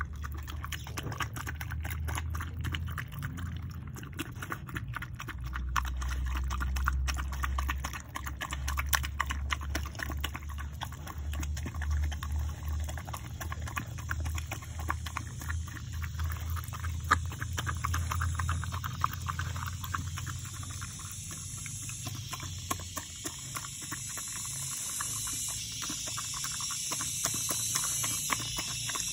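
A dog eating soupy rice from a bowl close to the microphone: a steady run of quick wet smacks and chewing clicks, with a low rumble underneath.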